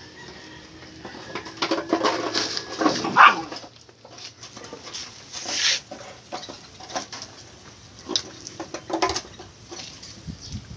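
Belgian Malinois puppies play-fighting, whining and yipping, loudest about three seconds in, with short scuffling clicks and bursts after that.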